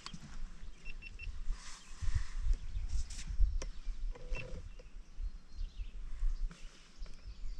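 Open-air ambience on a fishing boat: an uneven low rumble, a few light clicks and knocks, and a few faint high chirps like a small bird about a second in.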